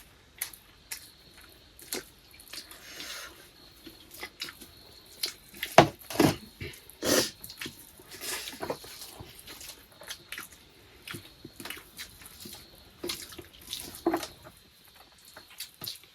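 Close-up eating sounds from a meal of rice and curry: irregular wet smacks, clicks and chewing noises, a few of them louder.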